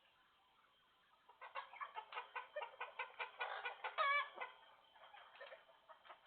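Chicken clucking in a fast run of short, clipped calls that start about a second in, rising to one loud squawk about four seconds in, then fainter clucks.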